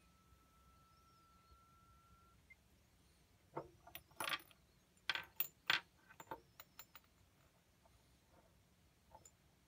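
A faint sine test tone from earbuds, rising slowly in pitch during a frequency sweep, stops about two seconds in. Then a flurry of light clinks and clicks as the earbuds are handled against small glass bottles, the loudest a few seconds in the middle, with a last couple of ticks near the end.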